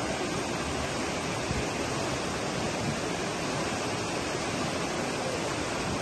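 River rapids rushing steadily over rocks, a continuous even roar of white water.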